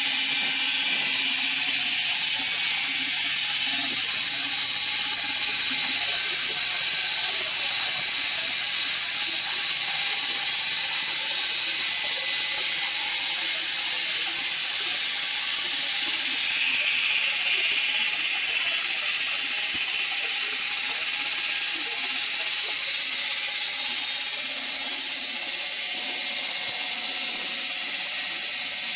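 Stone veneer saw's large circular blade cutting into a block of stone: a steady, high grinding hiss that shifts in pitch a few seconds in and again about halfway through.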